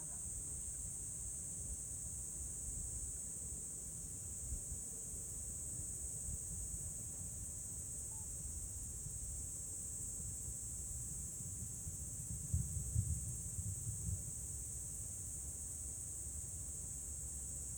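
Steady high-pitched chorus of night insects such as crickets, with a low rumble underneath and a few low thumps about twelve to fourteen seconds in.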